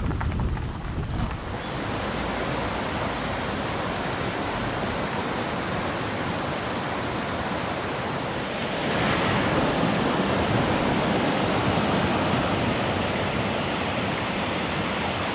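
Rushing water of a mountain stream, a steady hiss and rumble that gets louder about nine seconds in.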